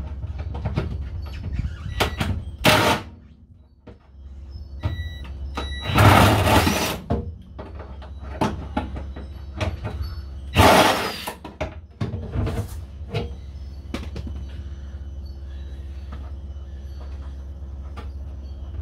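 Cordless impact wrench run in short bursts of about a second on the bumper bolts, twice loudly near the middle, between clicks and knocks of tools on metal, over a steady low hum.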